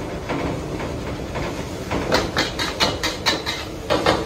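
Steel wok ladle and spatula scraping and clanking against a wok while stir-frying rice, over the steady rush of a gas wok burner. About two seconds in the strikes turn sharp and quick, about three a second.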